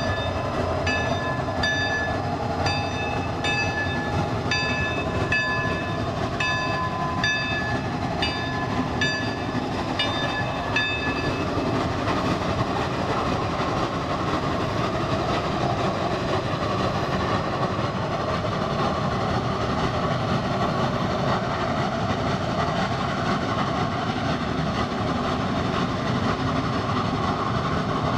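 Geared Shay steam locomotive No. 5 working as it pulls a passenger train away, a dense steady noise of exhaust and running gear. Through roughly the first eleven seconds a short high squeak repeats about once every 0.7 s.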